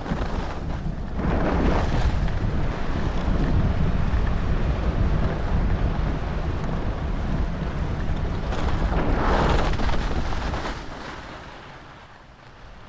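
Wind buffeting an action camera's microphone during a ski run, with louder rushes of skis carving over snow in turns. The noise dies down about ten seconds in as the skier slows.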